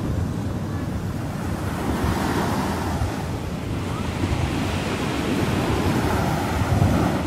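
Small sea waves breaking and washing up a sandy beach, with wind buffeting the microphone in gusts.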